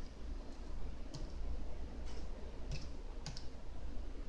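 Prusa i3 RepRap 3D printer running with a steady low hum, with sharp clicks at irregular intervals, about one to two a second.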